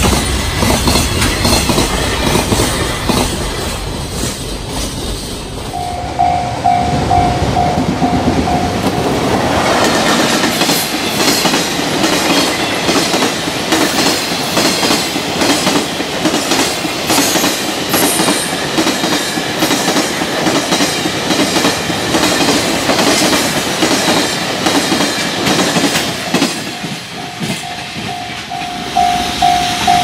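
Long container freight trains passing at speed, the wagons' wheels beating out a rhythmic clickety-clack over the rail joints. A level-crossing warning bell rings in steady, even pulses about six seconds in and again near the end, once the train noise falls away.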